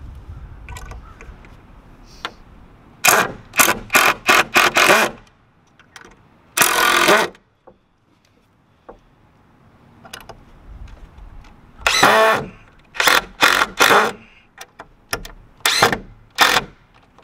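Cordless drill driving screws into wooden boards in a string of short bursts with pauses between. A Phillips bit of the wrong size slips and chatters in the screw heads.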